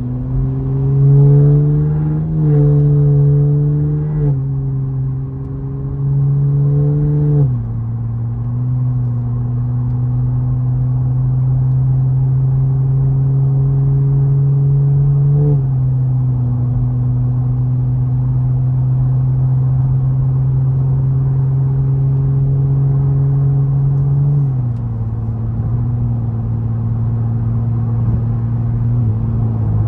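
Cadillac CT4-V Blackwing's twin-turbo V6 with catless downpipes, heard from inside the cabin as the car accelerates up through the gears. Its low exhaust tone climbs gently in pitch and drops at each upshift, four times.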